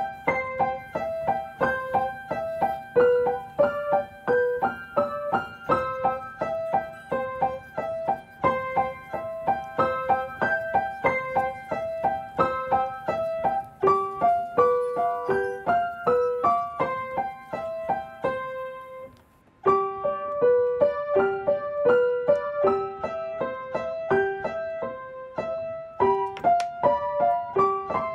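Background piano music: a light melody of quick, evenly paced notes. It breaks off briefly about two-thirds of the way through, then starts again.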